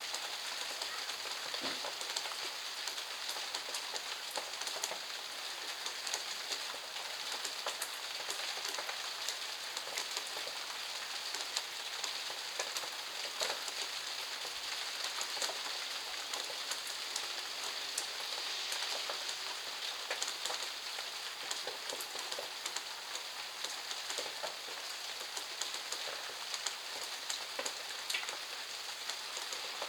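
Steady rain falling on surfaces in a backyard, a continuous hiss dotted with the sharp ticks of individual drops hitting close by.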